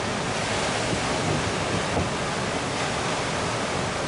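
Ocean waves breaking: a steady rush of surf, with wind rumbling on the microphone.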